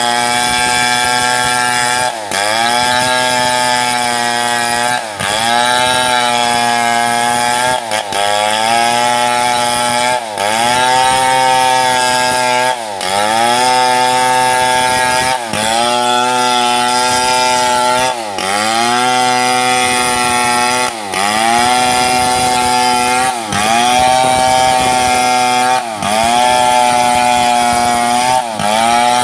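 Two-stroke chainsaw ripping a mahogany log lengthwise, running at high speed under load. About every two and a half seconds the engine pitch dips sharply and then climbs back, over and over.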